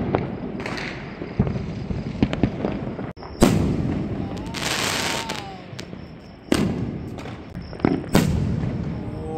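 Firecrackers and fireworks bursting on all sides, bombs and rockets going off far and wide: a steady rumble of distant bangs with several sharper, louder reports, the loudest about three and a half seconds in, and a short spell of crackling about five seconds in.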